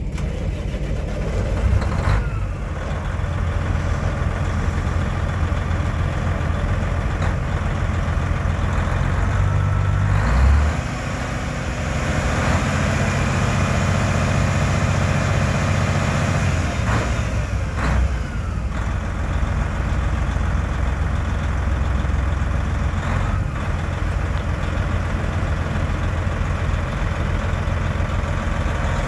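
2000 Sterling tandem-axle dump truck's diesel engine idling steadily, rising briefly about ten seconds in and then settling back. A few short sharp clicks sound over it.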